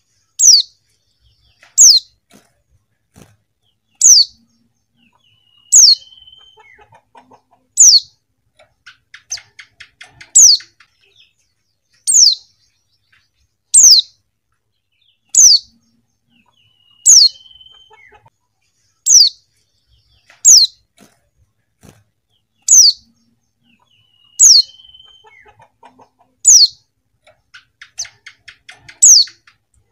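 Female white-eye (pleci) giving a short, high call that falls in pitch, repeated about every two seconds, about sixteen times. Faint, quick twittering comes between some of the calls.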